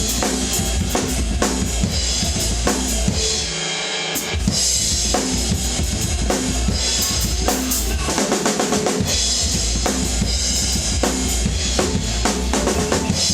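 Rock drum kit played hard along with a hard rock track: bass drum, snare and cymbal hits in a fast steady beat, with the low end dropping out briefly about four seconds in.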